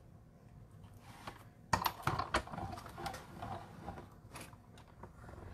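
Plastic cutting plates of a die-cutting machine being handled and set down: quiet at first, then a run of light clicks and clatter starting about a second and a half in, with scattered clicks after.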